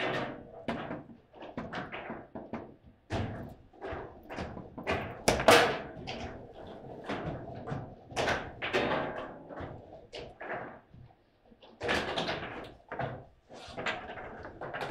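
Irregular knocks and clunks from a table football table, its rods and plastic players being handled, the loudest knock about five and a half seconds in.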